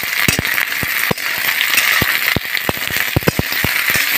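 Metal spatula clicking and scraping irregularly against a metal wok as diced capsicum, onion and green chilli are stir-fried on a high flame, over a steady sizzle of hot oil.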